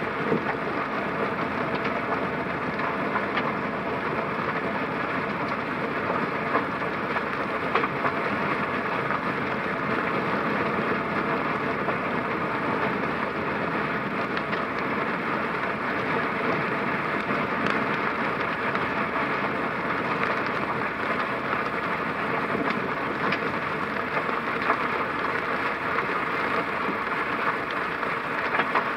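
A car driving on a wet road in the rain: a steady hiss of tyres and rain, with small ticks scattered through it.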